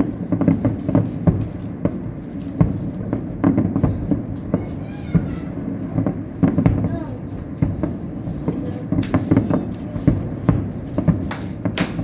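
A fireworks display going off in a rapid, continuous run of bangs and crackles over a low rumble, with crowd chatter underneath.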